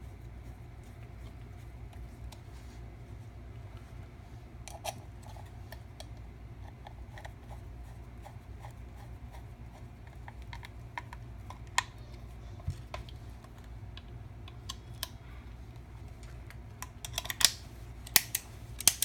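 A steady low hum under scattered small clicks and taps of a guitar pedal and its parts being handled, with a quick flurry of louder clicks near the end.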